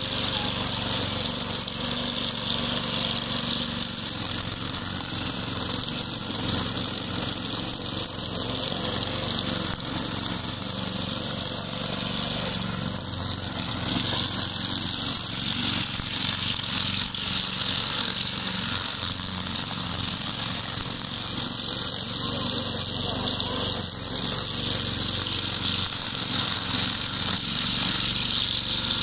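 Walk-behind wheeled string trimmer's small petrol engine running steadily under load as it cuts through tall grass, with a high hiss over the engine note.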